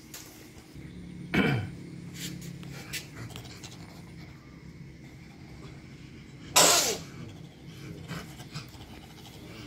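Palm civet giving two short, explosive hiss-like calls about five seconds apart, each dropping sharply in pitch.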